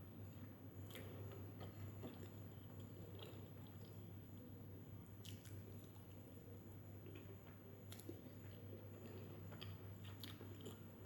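Faint close-up chewing of a mouthful of chicken biryani, with scattered small mouth clicks, over a steady low hum.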